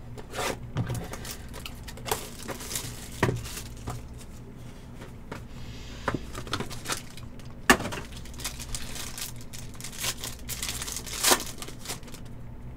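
Trading-card packaging being crinkled and torn open, with scattered sharp clicks from cards and cardboard being handled. There are longer rustling stretches about two seconds in and again near the end.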